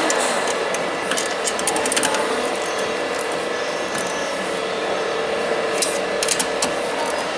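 Hand tools working on a steering column: runs of quick metallic clicks, as of a ratchet, about a second in, around two seconds and again near six seconds, as the cover nuts are snugged up a little at a time. A steady workshop hum with a faint constant tone runs under them.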